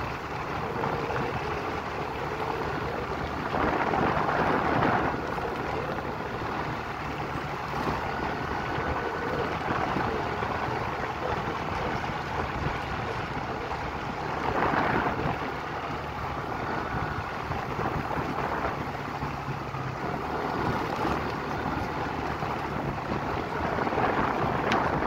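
A vehicle driving along a paved road: steady engine and road noise with wind on the microphone. The noise swells briefly three times, about four seconds in, around fifteen seconds, and near the end.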